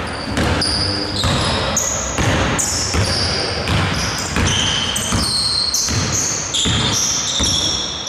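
Basketball dribbled on a hardwood court, bouncing about twice a second, with short high squeaks of sneakers on the floor in between.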